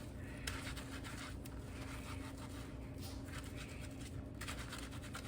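Irregular soft rubbing and scratching strokes of hands working shampoo through a wet wig's hair.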